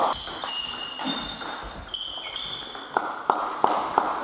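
A table tennis ball clicking off bats and the table in a reverberant sports hall: a new rally starts about three seconds in, with hits coming roughly three a second. Before that there are a few high squeaks.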